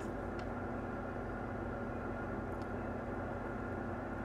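A steady electrical hum with a fan-like hiss from the soldering bench's equipment, holding level throughout, with a faint tick or two.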